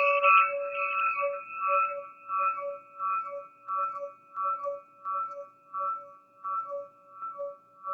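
Crystal singing pyramid ringing with a few clear, steady tones, loudest at first, then swelling and fading in a steady pulse a little under twice a second.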